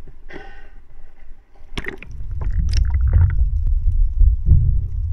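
Water splashing and sloshing around a camera's microphone at the surface. About two seconds in, the microphone goes underwater and the sound becomes a loud, muffled low rumble with scattered knocks.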